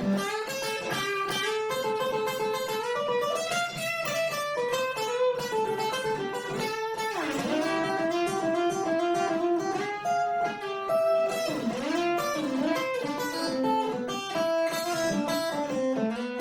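Guitar playing an instrumental passage of quick single notes over ringing strings, with a couple of notes bent in pitch.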